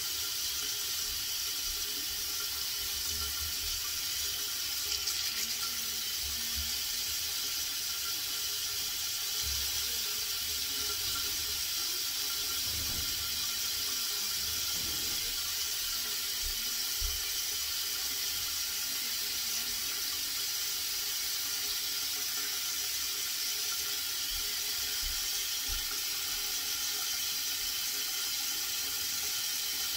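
Water running steadily, an even hiss.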